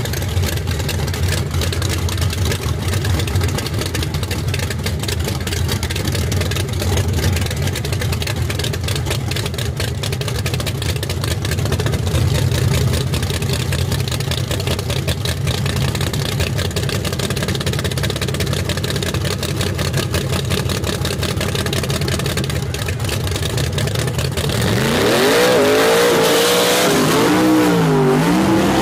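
Big-block Chevrolet V8 in a nitrous Chevy II Nova drag car idling low and steady. About 25 seconds in, it revs hard, its pitch climbing and swinging up and down as the car does a smoky burnout.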